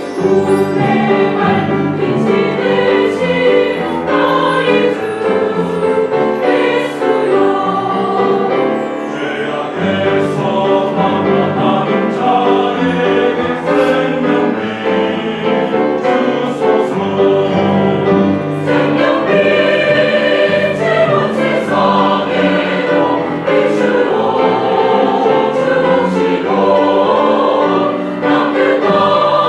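Church choir singing a sacred anthem in full voice.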